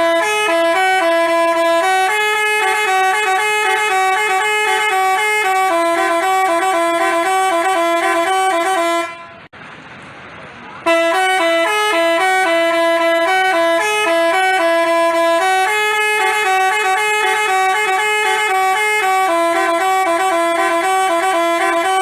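Telolet basuri horn, an Indonesian multi-note musical bus horn, playing a fast melody of stepping horn notes. The melody breaks off about nine seconds in, leaving only a faint hiss for about two seconds, then starts again.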